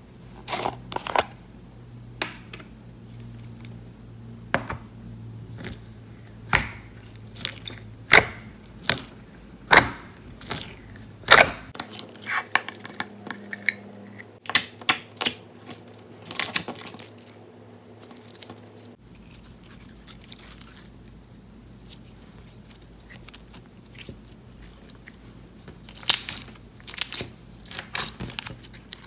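A pink clear slime with beads and charms and its plastic container being handled: irregular sharp pops and clicks in clusters, with a quiet stretch near the end before a last group of clicks.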